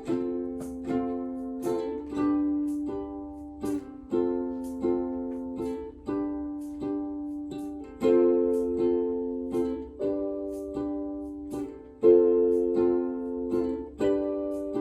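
Instrumental music: chords strummed on a plucked string instrument. Each strum rings and fades before the next one, and the chord changes every couple of seconds.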